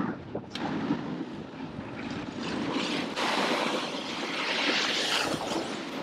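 Skis sliding and carving on a groomed run, a rough scraping hiss of the edges on the snow, mixed with wind rushing over the microphone. The hiss swells louder about halfway through.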